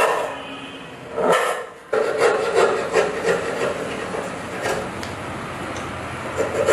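Wood being worked by hand with repeated rubbing strokes, easing off mid-way and picking up again near the end.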